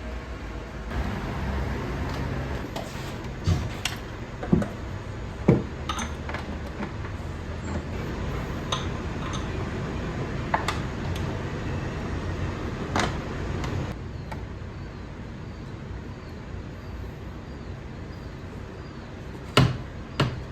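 Scattered clicks and knocks from handling and mounting a retractable extension cord reel, over a steady low background hum.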